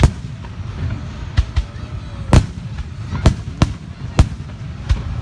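Fireworks shells bursting in a string of sharp bangs, about nine in five seconds at uneven intervals, over a low steady rumble.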